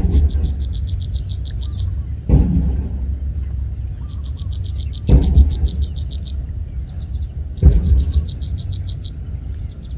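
Frogs calling: a deep call repeated about every two and a half seconds, with bursts of a fast, high-pitched pulsing trill in between, over a steady low rumble.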